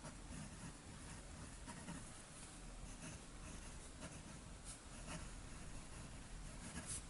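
Faint scratching of a fountain pen's medium steel Bock nib gliding over thin Tomoe River paper, in short irregular strokes as words are written.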